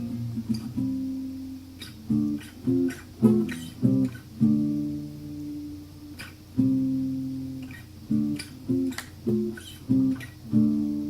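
Acoustic guitar strummed without singing. It plays bursts of short, sharp chords in quick succession, broken by a few chords left to ring for a second or two.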